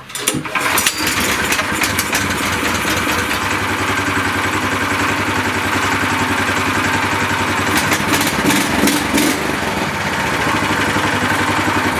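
A Shtenli 1900 walk-behind tractor's single-cylinder petrol engine is pull-started and catches at once, then runs steadily in neutral. It runs evenly with no extraneous noise from the gearbox.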